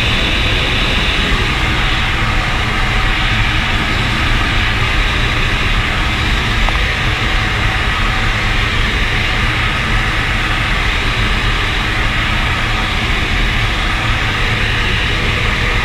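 Steady drone of an Air Tractor AT-802's single turboprop engine and propeller in flight, heard from inside the cockpit.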